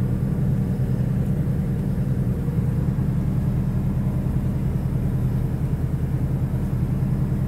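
Suzuki Carry Futura minivan's engine running steadily under way, a low even hum with road noise, heard from inside the cabin.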